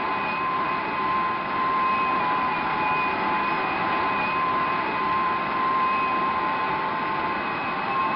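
Whittle's early experimental jet engine running: a steady rushing noise with a high, even whine.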